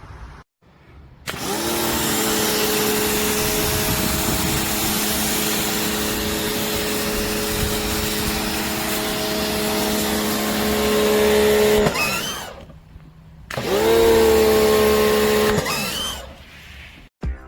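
Electric pressure washer running: a motor hum over the wide hiss of the spray. It starts a second in and runs steadily, winds down and stops about twelve seconds in, then starts again for about two seconds and stops.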